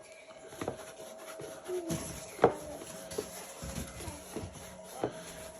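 Plastic motorcycle wheel covers being rubbed and handled while cleaned, with scattered short knocks; the loudest knock comes about two and a half seconds in.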